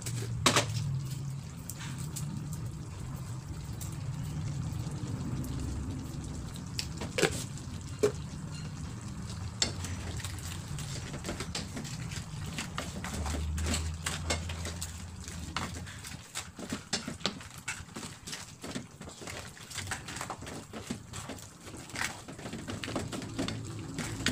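A pan of crabs and vegetables simmering in coconut milk is stirred with a wooden spatula, giving scattered knocks and scrapes against the pan, more frequent near the end. Under it is a low steady hum that drops away about two-thirds of the way through.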